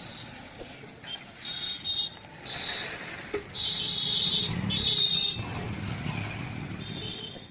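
Roadside street noise with motor vehicles passing, swelling in the middle, and several short bursts of a high-pitched sound over it.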